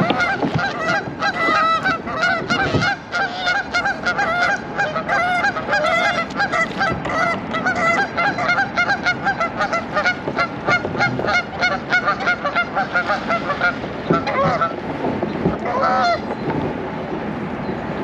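Several Canada geese honking, many calls in quick succession. The honking thins to a few single calls in the last few seconds.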